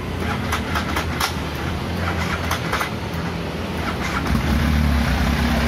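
Benelli Cafe Racer 1130's inline three-cylinder engine being started: uneven cranking with irregular sharp pops, then about four seconds in it catches and settles into a steady, louder idle.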